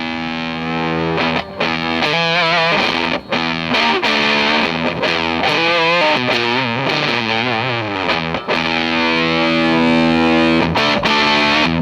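Electric guitar played through an Earthquaker Devices Spires Dual Fuzz pedal, heavily fuzzed: a held chord, then single notes that waver and bend, and another held chord near the end, with a few brief breaks between phrases.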